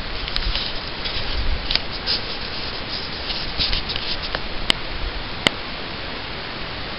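Steady hiss with scattered crackling and rubbing from a low-quality camera microphone, typical of the camera being handled while filming. Two sharp clicks come about two thirds of the way in, less than a second apart.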